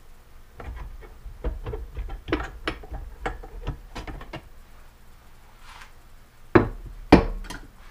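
Aluminium crankcase halves of a 2007 Yamaha YZ250 two-stroke engine clinking and knocking as one half is handled and lifted off the other: a run of light knocks, then two loud knocks near the end.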